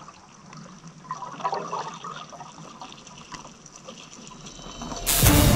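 Water sloshing and bubbling as picked up by a camera underwater, with scattered small clicks. Loud music cuts in suddenly near the end.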